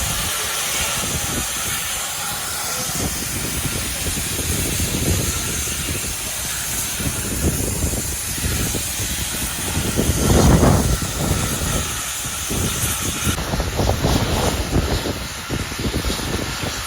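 Steam locomotive standing at the platform with a steady hiss of escaping steam and irregular low rumbling, rising to a louder surge about ten seconds in.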